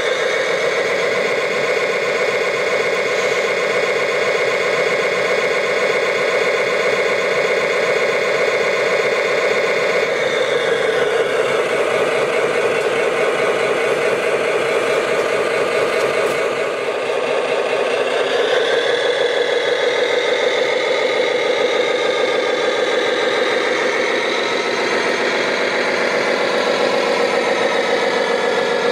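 Engine sound of RC construction models running steadily, shifting pitch about ten seconds in, then dipping briefly and revving higher for the last third.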